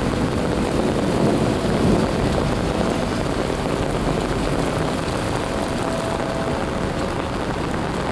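Steady rain in a thunderstorm, an even hiss over a continuous low rumble.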